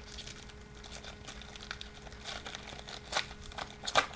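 Foil trading-card pack wrapper and baseball cards being handled: a run of crinkling and small crackles, with two sharper crackles about three seconds in and near the end.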